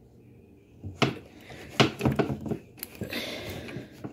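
Metal clicks and clatter of a hand grease gun's coupler being pushed onto the grease fitting of a drive-shaft U-joint and the gun being worked, with a short hissing noise near the end.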